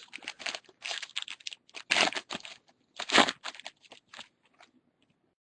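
Trading cards and their foil pack wrapper being handled: irregular crinkling and rustling with small sharp clicks as cards are flipped and slid against each other.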